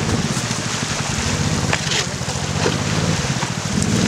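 Motorboat engine running steadily at an even pitch, with a fast, regular pulsing beat.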